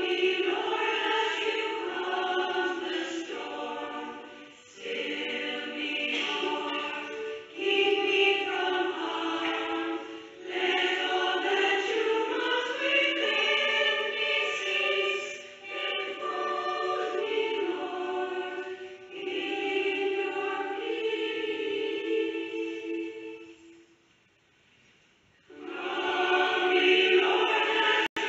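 Background music: a choir singing slow phrases with short breaths between them, breaking off briefly near the end before starting again.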